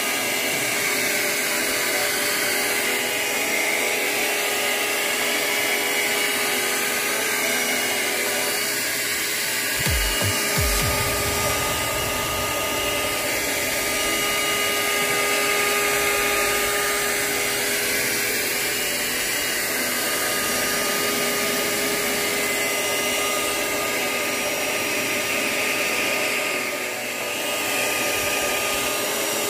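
Handheld hair dryer blowing steadily, drying a toy car, with a steady motor whine. A few low thuds come about ten seconds in.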